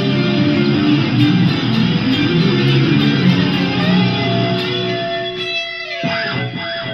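Electric guitar music: a busy passage that thins out near the end into a few held notes ringing on.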